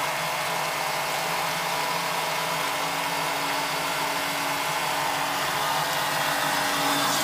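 Pressure washer running steadily, driving a Kränzle mud-sucker sludge pump; the pump's outlet hose gushes water onto a tarpaulin. A steady low motor hum sits under a continuous rushing, splashing water sound.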